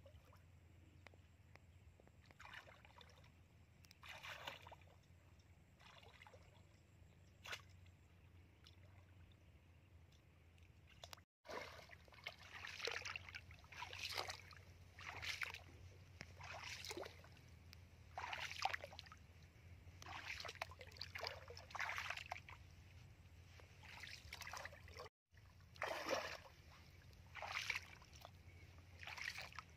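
Splashing and sloshing in shallow muddy water as a person wades and pushes a woven plunge basket down into it, one splash every second or two, over a steady low hum.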